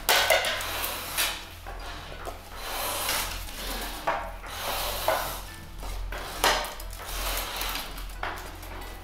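Thin strips of split bamboo rustling and scraping against each other in irregular swishes as they are twisted and braided by hand into a hoop for an oke-daiko barrel drum.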